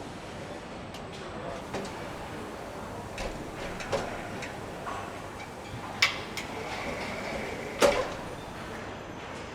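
Engine assembly line work sounds: a steady workshop hum with scattered sharp metallic clicks and knocks from tools and parts, the two loudest about six and eight seconds in, with a faint high whine between them.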